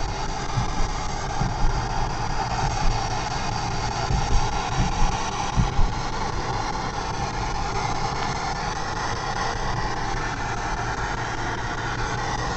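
A P-SB7 spirit box sweeping the FM/AM bands gives a steady hiss of radio static over the low rumble of a car in motion. A few short low thumps come in the first half.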